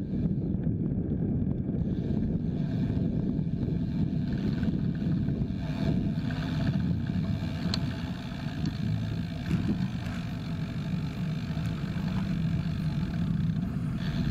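Steady rumble of slow, close road traffic (a motorcycle, a van and a jeepney just ahead), heard from a bicycle-mounted camera with some wind on the microphone and a few faint ticks.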